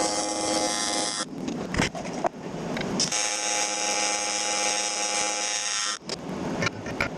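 Power saw cutting through an aluminum crossbar: a steady, high metallic whine in two long stretches that stops about six seconds in, followed by a few knocks and clatter.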